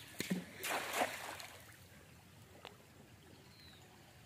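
Water splashing and sloshing in a few short bursts in the first second and a half.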